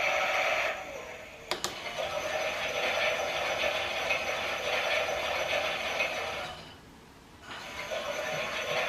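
Toy washing machine's small drum motor whirring steadily. It cuts out briefly about a second in and again near the end, with a sharp click as it starts up again after the first pause.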